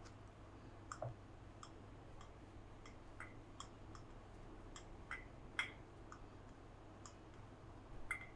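Faint, irregular light clicks and taps from a wooden rolling pin rolling out dough on a bamboo cutting board, a few each second, with sharper taps about a second in, midway and near the end.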